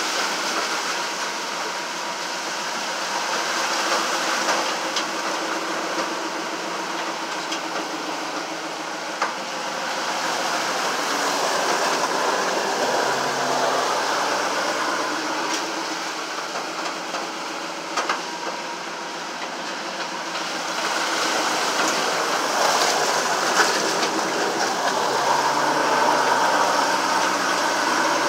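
Engine running and floodwater rushing under the body, heard inside the bare-metal cab of an old stripped-out vehicle driving through a flood. The sound is a loud, steady din that swells and eases, with a few sharp knocks and rattles from the cab now and then.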